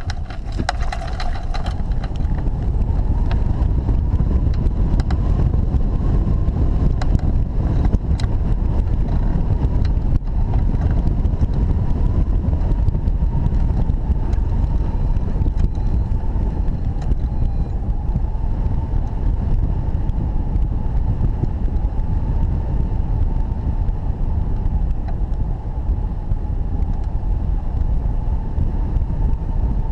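Airflow buffeting a hang glider's wing-mounted camera microphone in flight: a steady, heavy wind rush that builds over the first couple of seconds as the glider leaves the ramp and picks up speed. A faint steady whistle runs above it.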